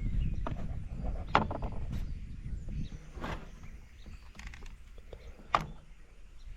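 Bundled extension cords being handled and set on a scale: rustling and scattered knocks, the sharpest about a second and a half in and another near the end.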